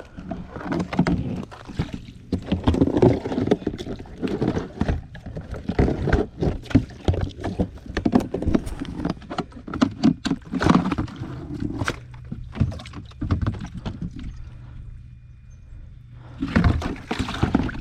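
River water splashing and sloshing as it is scooped into a cooler at the bank, with irregular knocks and bumps. It eases off and quietens about two seconds before the end.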